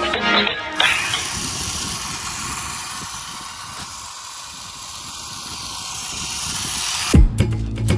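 Small battery-powered remote control 4x4 car running, a steady mechanical buzz that fades down about four seconds in and comes back up. Background music ends a moment in and starts again with a thump near the end.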